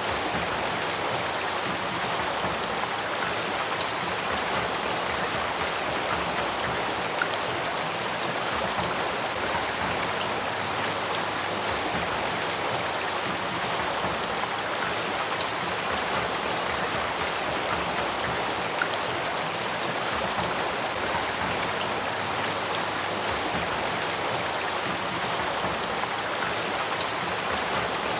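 Spring-fed headwater stream of the Sacramento River running over rocks, a steady, even rush of water.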